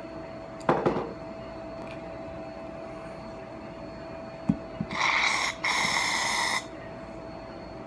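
Aerosol can of shaving cream spraying: two hissing squirts about five seconds in, the second about a second long, after a single knock on the table near the start.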